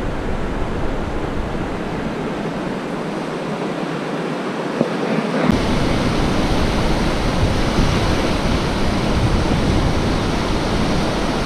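Sea waves washing up over sand and shingle, a steady rushing hiss of surf. About five and a half seconds in it changes to heavier surf with a deeper rumble underneath.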